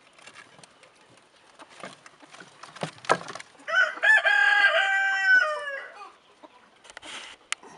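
A rooster crows once about halfway through, a stepped call about two seconds long that drops in pitch at the end. Before it come scattered rustles and knocks in the straw of the rabbit hutch.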